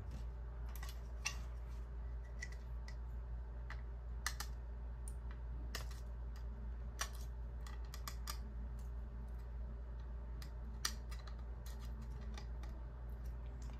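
Irregular light clicks and scratches of a thin metal pick working against 3D-printed plastic goggles, picking away support material. A steady low hum runs underneath.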